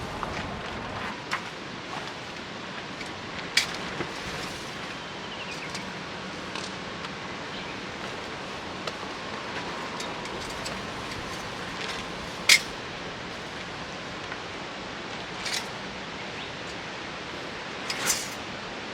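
Steady background hiss with a few sharp clicks and knocks, the loudest about twelve seconds in.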